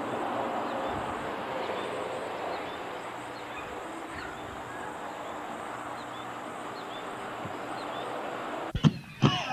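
Steady outdoor background hiss with faint, short, high chirps repeating. Near the end it cuts to loud powwow drum beats.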